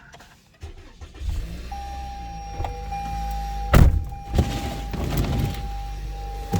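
Car engine starting about a second in and settling into a steady low idle as it is warmed up on a freezing morning, with a thin steady high tone over it and a loud thump partway through.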